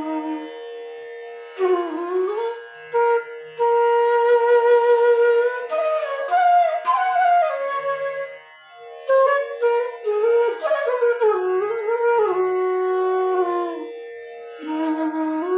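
F-sharp bass bamboo flute (bansuri) playing a slow Indian classical-style melody, with pitch slides and ornaments, over a steady drone note. It is being played as a tune and tone check of the newly made flute.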